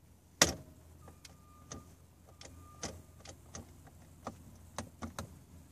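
A string of irregular light clicks and taps, roughly two a second, some with a brief ringing tone, after one sharper click about half a second in.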